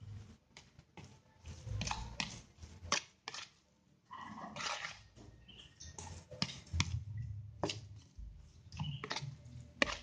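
Metal spoon stirring and mashing a thick tofu and grated-coconut mixture in a plastic bowl: irregular clicks and scrapes of the spoon against the bowl.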